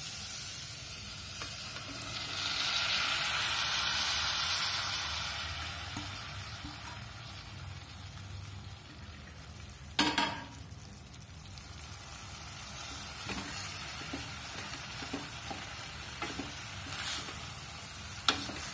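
Chopped onion, capsicum and tomato with spices sizzling in a hot stainless steel pot, stirred with a wooden spatula. Just after ten seconds in, boiled carrot, cauliflower and beans go into the pot with a brief loud knock, and the sizzling is quieter after that.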